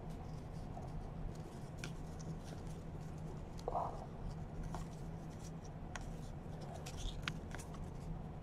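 Faint scratching and light ticks of baseball trading cards being slid and flipped through by hand, over a steady low electrical hum.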